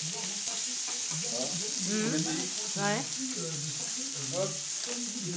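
Sausages, peppers and mushrooms sizzling steadily on an electric plancha griddle, with indistinct voices underneath.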